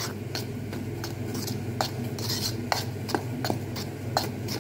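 Metal teaspoon clinking and scraping against a bowl while stirring dry rice flour with salt, in irregular light taps about two or three a second, over a steady low hum.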